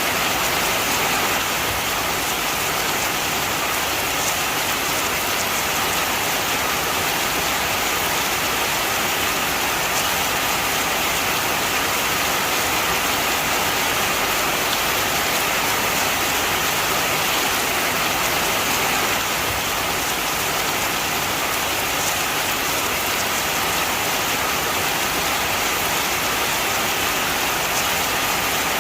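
Steady heavy rain, an even hiss of drops falling on surfaces, with faint scattered drop ticks and no change in intensity.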